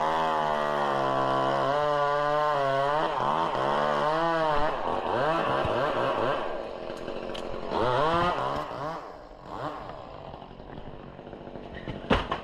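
Chainsaw running and cutting, its engine revving up and down, then dropping back to a lower, quieter run about nine seconds in. A sharp thud near the end.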